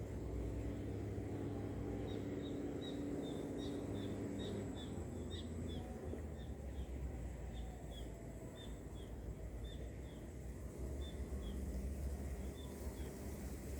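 A bird calling in a run of short, high chirps, about two a second, over a steady low rumble.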